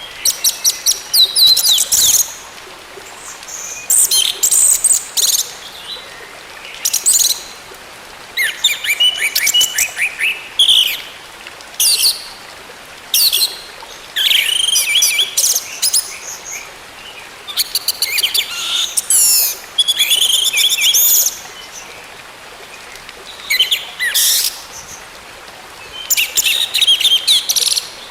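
Orange-headed thrush song: repeated phrases of rapid, high, varied notes and trills, each a second or so long, with short pauses between.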